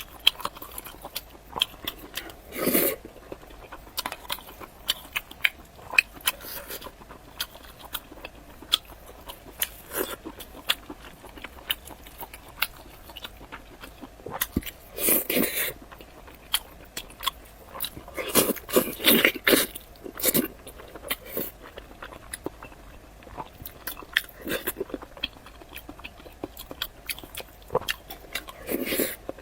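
Close-miked eating: crunchy bites and chewing, with sharp crackling clicks throughout and louder stretches of crunching about three seconds in, around the middle, and again a few seconds after that.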